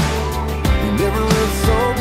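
Country-pop song playing, with drum hits and a gliding melodic lead line over a steady backing; no words are sung in this stretch.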